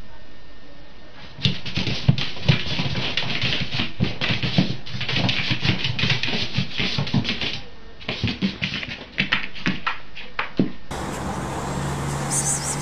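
A cat scrambling and pouncing on a carpeted floor after a laser-pointer dot: an irregular run of thumps and scuffles. Near the end the sound changes abruptly to a steadier background.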